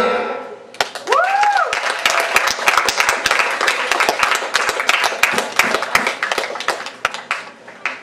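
Audience clapping as the song ends, with one short rising-and-falling cheer about a second in.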